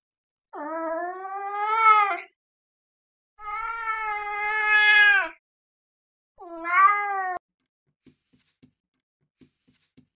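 Domestic cat meowing three times; each meow is drawn out and rises in pitch toward its end, and the middle one is the longest. A few faint soft taps follow near the end.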